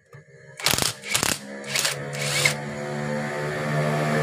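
Cordless impact wrench with a 14 mm socket working the magneto flywheel bolt loose on a Honda GL Pro Neo Tech engine. It hammers in two short bursts, then runs on with a steady whir that grows louder toward the end as the bolt spins free.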